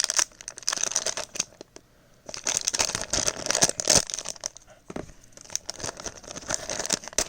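A small plastic blind-bag packet crinkling and tearing as it is handled and torn open, in irregular bursts with a short pause about two seconds in.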